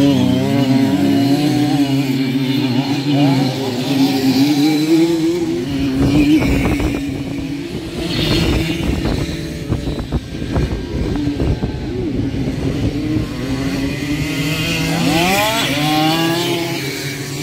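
Tuned Simson two-stroke moped engines of racing motocross bikes, revving and falling back as they accelerate and shift, with a sharp rise in revs near the end.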